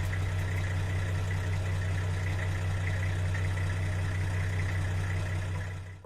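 Engine idling steadily with a deep, even hum, cutting off suddenly near the end.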